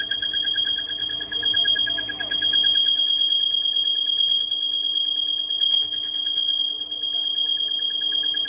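Metal lathe running with a motorcycle part spinning in its chuck, giving a steady, high-pitched whine that holds one pitch.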